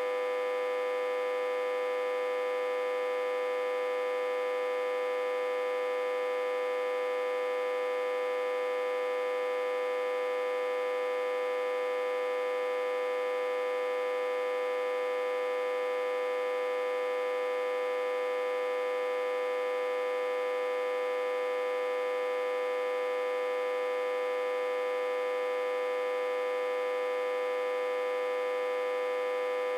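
Autotransformer humming steadily at one unchanging pitch with many overtones. It is reverse-connected to a step-down transformer and fed about 60–80 V.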